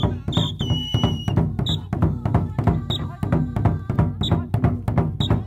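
Traditional African dance drumming, a fast steady beat, with short shrill whistle blasts every second or so; one blast about a second in is held longer and dips in pitch.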